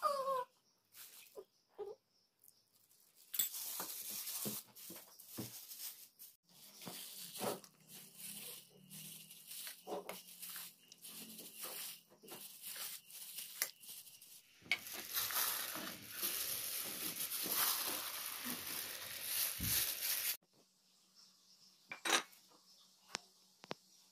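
Steel bowls and a spoon clinking and scraping while raw chicken pieces are mixed by hand. A steady rushing noise comes in after the middle, lasts about five seconds and cuts off suddenly, with a few light clicks after it.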